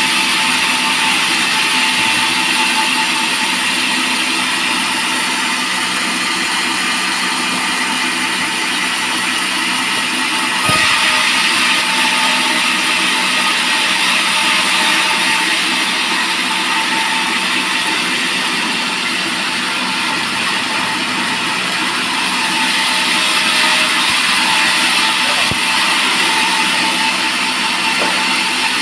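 Band sawmill running steadily while its blade cuts along a teak log. There is one brief knock about eleven seconds in.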